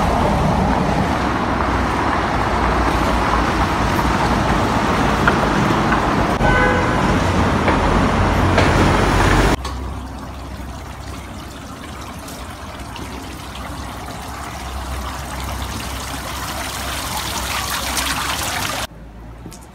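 Steady rushing outdoor street noise of traffic on a wet road, with a short car-horn toot about six and a half seconds in. About halfway through the noise drops suddenly to a quieter level, and it cuts off abruptly shortly before the end.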